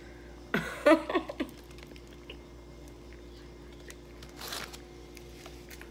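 Eating at close range. A short voiced sound comes about half a second in, then chewing, and later a brief crackle of the aluminium-foil wrap around a pita sandwich as it is gripped and bitten. A faint steady hum runs underneath.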